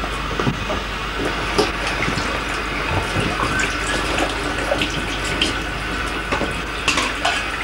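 Water running from a tap into a stainless-steel sink, steady, with small irregular splashes.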